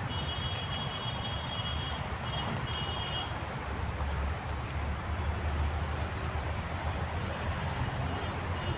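Outdoor background noise: a steady low rumble under an even hiss, with a faint high-pitched steady tone during the first three seconds.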